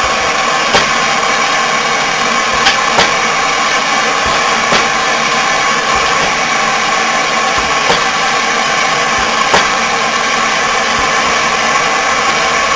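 A wrench turning the forcing bolt of a wheel hub puller to draw the stator out of a compressor housing, with about six short sharp metallic clicks, over a steady loud hissing roar.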